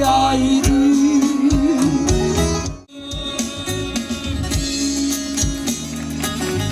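Live folk music over a loudspeaker system, with a plucked string instrument carrying a wavering melody over a drum beat about twice a second. The music cuts out for a moment about three seconds in, then resumes.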